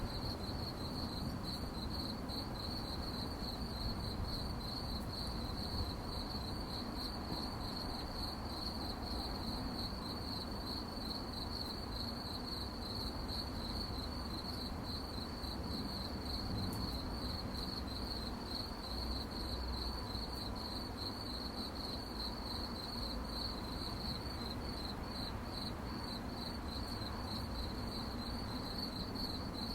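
Crickets chirping in a steady, unbroken chorus: one high trill pulsing rapidly and evenly, over a low background rumble.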